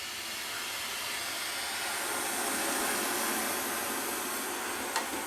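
MAP gas torch flame hissing steadily while it heats a plumbing pipe joint for soldering; the hiss swells over the first couple of seconds and then holds. One sharp click sounds about five seconds in.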